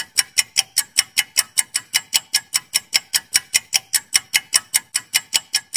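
Quiz countdown-timer sound effect: an even, quick clock ticking, about five ticks a second, counting off the time allowed to answer.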